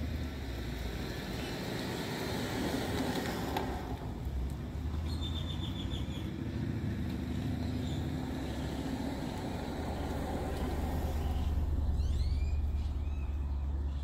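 Steady rumble of passing road traffic, swelling and easing as vehicles go by. Small birds call over it: a quick run of high notes about five seconds in and a few short chirps near the end.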